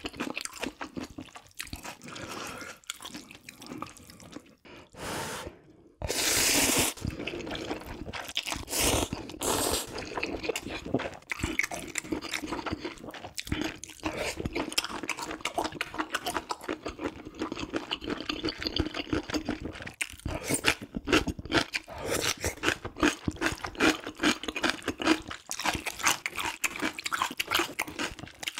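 Close-miked eating sounds: wet slurping of spicy ramyeon noodles and broth, with chewing, and a louder slurp about six seconds in.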